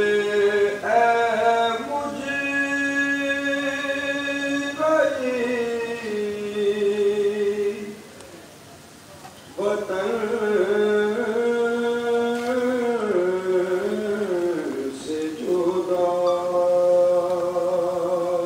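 A man chanting a devotional recitation in long, held, melodic phrases, with a short pause about eight seconds in.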